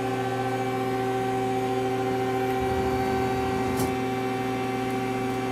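A 2000 Mazak QT250 CNC lathe stands powered on, giving a steady hum made of several fixed tones. A faint low rumble comes in about the middle, and there is a small click at about four seconds.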